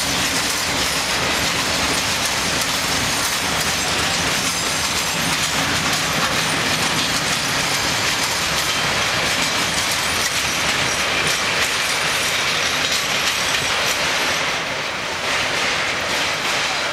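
Loaded rail tank wagons of a freight train rolling past slowly, their wheels clattering over the rail joints in a steady clickety-clack. The noise eases slightly near the end as the last wagons pass.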